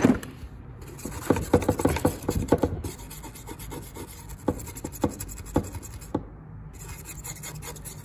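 Metal tools clinking as a hand rummages through a bin of sockets and bits, with a knock at the start. Then a brush scrubs caked dust off the plastic housing of a wet/dry vacuum motor in repeated short strokes, quickening near the end.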